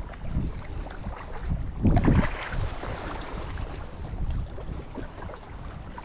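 Wind rumbling on an action camera's microphone over the wash of the sea, with a louder surge about two seconds in.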